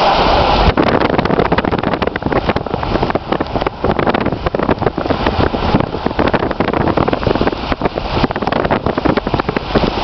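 Wind buffeting the microphone, a rough crackling rush that sets in suddenly about a second in, over the rushing noise of the flooded river.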